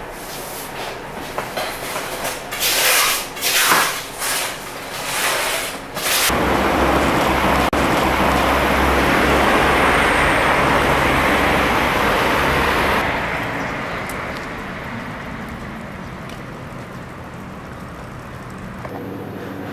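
Industrial utensil-washing machine running. Irregular bursts of wash noise for the first six seconds give way to a steady loud wash with a low motor hum, which dies down to a quieter hum about thirteen seconds in.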